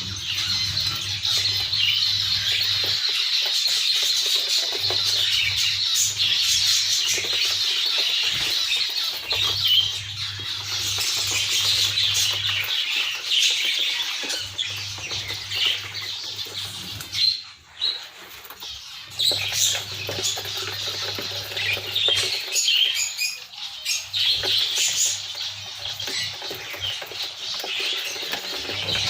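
A group of spangle budgerigars chattering and warbling continuously with chirps and squawks, with a short lull about two-thirds of the way through. A low hum comes and goes every few seconds underneath.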